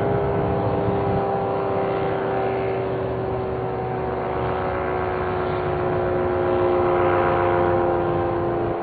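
Cyclone warning siren sounding a long held tone made of several pitches together, sagging slightly in pitch and growing a little louder about seven seconds in.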